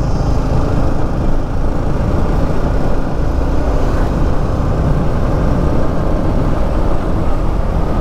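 Yamaha MT-15 motorcycle cruising at a steady speed, its 155 cc single-cylinder engine running evenly under a steady rush of wind and road noise.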